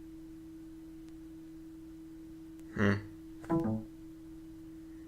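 A steady low hum with two short, pitched plucked-bass-like notes about three seconds in, heard as music.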